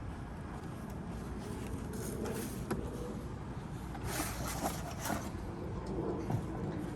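Steady low outdoor rumble, with a few faint rustles and clicks about two seconds in and again around four to five seconds in as the new extended RV door handle is taken from its box and handled.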